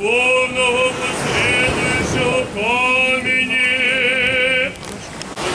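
Voices singing Orthodox liturgical chant, with long, wavering held notes that break off shortly before the end.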